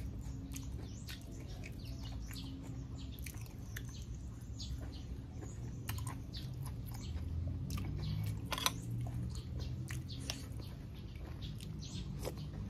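A man chewing a mouthful of raw beef and liver dipped in chili sauce: soft, wet chewing with many small smacking clicks of the lips and tongue.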